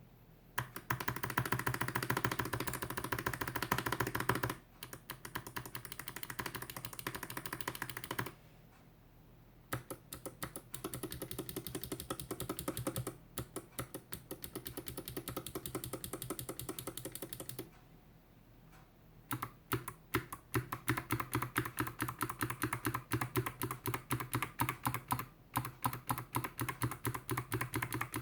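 Typing on a GK61X mechanical keyboard with NovelKeys x Kailh BOX Jade thick-click switches (stainless steel plate, plastic case, DSA keycaps), with the modifier keys being pressed. It goes in rapid runs of sharp clicks with two short pauses and some quieter stretches.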